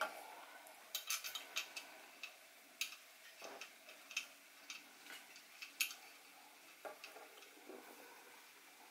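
Faint, irregular small metallic clicks and ticks as a plug is picked up and threaded back into the top of a small homemade copper model steam boiler after it has been filled with water.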